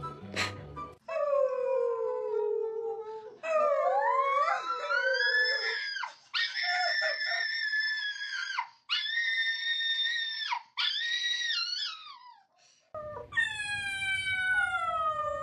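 An animal howling in a series of long, drawn-out calls, some sliding down or up in pitch and others held steady.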